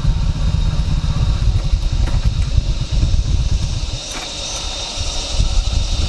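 Motorcycle engine running at low speed, a steady pulsing rumble that eases off slightly about four seconds in.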